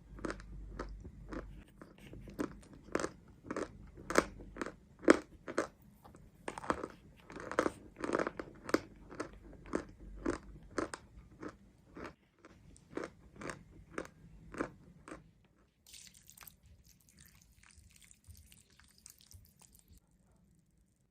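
Close-miked crunching of mountain chalk being chewed, a regular crunch about twice a second. About 15 seconds in the crunches give way to fainter, softer chewing, which stops just before the end.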